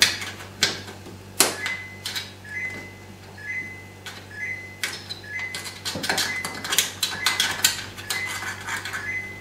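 Irregular clicks and knocks of hands working at the drain hole beneath a Samsung fridge freezer's evaporator. From about a second and a half in, a faint short electronic beep repeats at two alternating pitches under a low steady hum.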